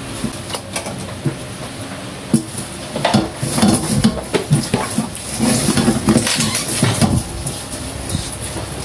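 A whole raw chicken being rubbed and turned by hand in a stainless steel bowl, with irregular knocks, rattles and scrapes of the bowl, busiest in the middle few seconds.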